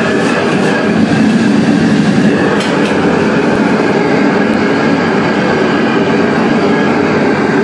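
Commercial wok burner's high gas flame making a loud, steady rush as noodles are stir-fried in the wok, with a single sharp knock about two and a half seconds in.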